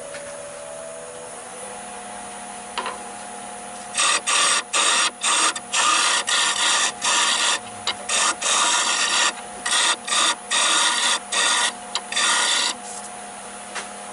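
Wood lathe running with a steady motor whine that rises in pitch early on as it speeds up. From about four seconds in, a turning tool cuts the spinning olive wood in a string of loud scraping strokes, each under a second, which stop shortly before the end.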